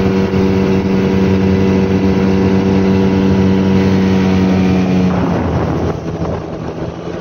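A motorboat's engine running steadily at speed over the rush of water and wind; about five seconds in the engine note drops away and the sound gets quieter, leaving mostly water and wind noise.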